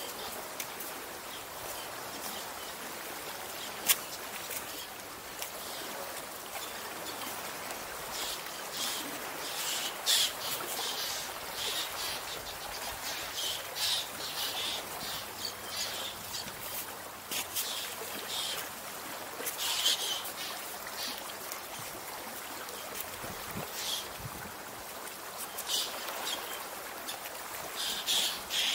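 Seawater lapping and trickling among shoreline rocks, with a scatter of short, sharp high-pitched clicks that grow more frequent from about eight seconds in, and one louder click about four seconds in.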